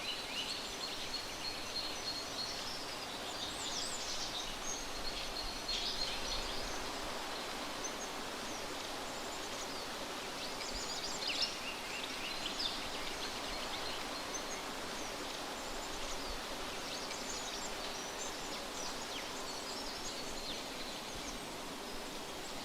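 Forest ambience: a steady hiss of background noise with birds chirping in scattered bursts.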